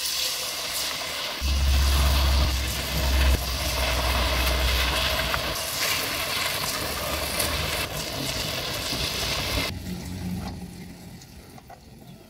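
Battered pieces dropped into hot oil in a wok, frying with a loud, steady sizzle that falls away sharply near the end. A low rumble runs underneath for a few seconds early in the frying.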